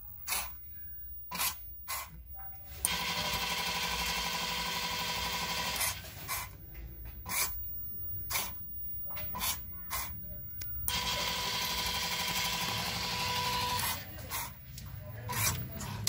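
Stepper motor of an Arduino wire stripper's feeder running twice for about three seconds each time with a steady whine, starting and stopping abruptly. Irregular sharp clicks come before, between and after the runs.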